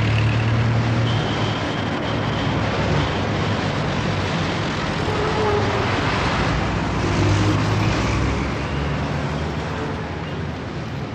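Steady road traffic noise, with engines running and vehicles passing.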